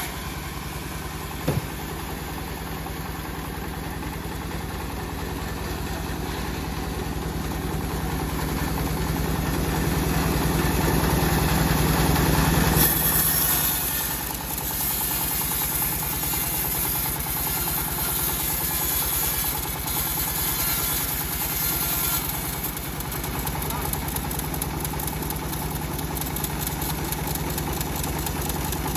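Homemade engine-driven bandsaw sawmill running steadily while sawing a teak log, growing louder toward the middle and changing abruptly a little before halfway; a single sharp click about a second and a half in.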